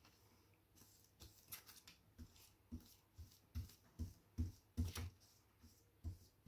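Paintbrush dabbing and stroking paint onto paper: a faint train of short taps and scratchy strokes, about two a second.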